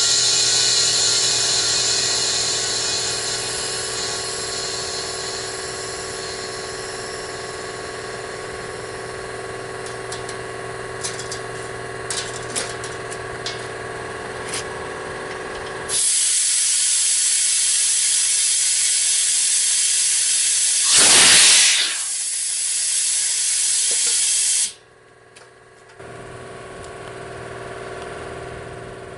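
Compressed air hissing as it escapes around a truck tire bead that will not seat. The hiss fades slowly, with a few small clicks. About halfway a louder rush of air starts suddenly, swells briefly and then cuts off abruptly.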